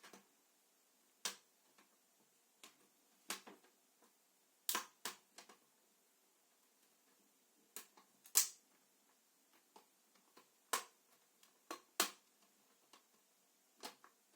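Plastic screen bezel of a laptop being pressed back on, its clips snapping into place: a dozen or so sharp clicks at irregular intervals, the loudest about eight seconds in.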